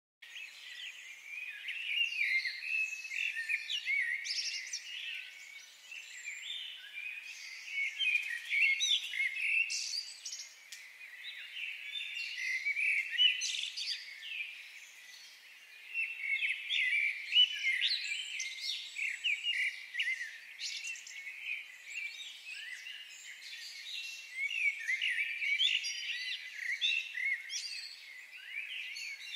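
Dense chorus of small birds chirping and twittering: many short, overlapping chirps sliding up and down in pitch, starting abruptly just after the opening.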